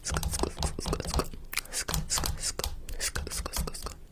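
A rapid, irregular series of sharp clicks and taps over a low rumble.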